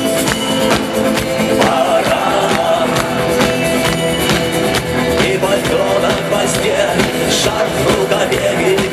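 Rock band playing a song with a steady drum beat.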